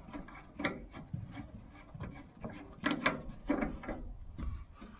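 Irregular handling noises of hands working at the added fuel tank's filler: scrapes, rubs and a few sharper knocks.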